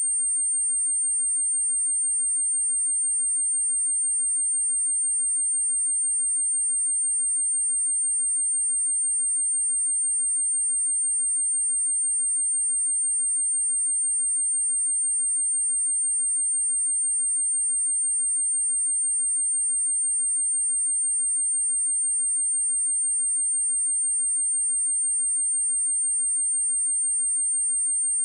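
A single steady 8702 Hz sine-wave test tone, one pure high-pitched whistle held at constant level without a break. It is a speaker test tone of the kind used to shake water and dust out of a phone or speaker grille.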